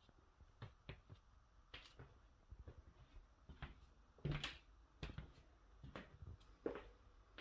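Near silence in a small room, broken by scattered faint clicks and knocks; the loudest knock comes about four and a half seconds in.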